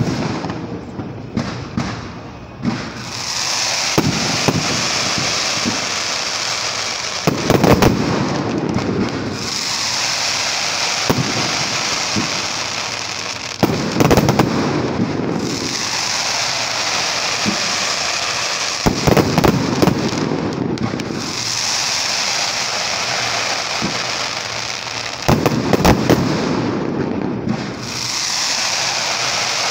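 Aerial fireworks display: shells bursting in clusters of sharp bangs about every six seconds, with a steady crackling hiss of glittering stars between them.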